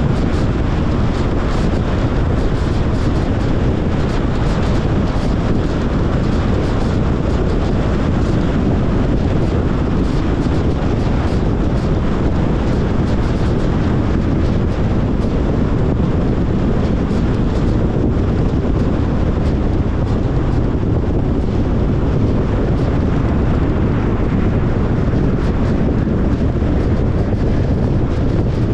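Steady road and wind noise from a Tesla Model Y Long Range being driven: tyres on the road and rushing air, heaviest in the low end and even throughout.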